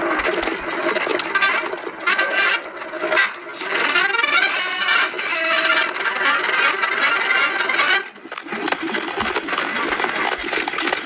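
Film end-credits music sped up to four times its normal speed, a dense, fast jangle of plucked and string instruments.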